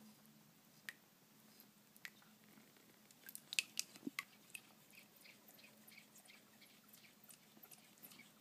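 A hedgehog's claws clicking and tapping on the sink as it scurries about. Scattered sharp ticks, with a quick flurry about three and a half seconds in, then faint ticks a few times a second.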